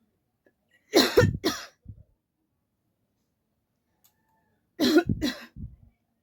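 A person coughing on purpose: a quick bout of two or three harsh coughs about a second in, then another bout of two or three coughs nearly four seconds later.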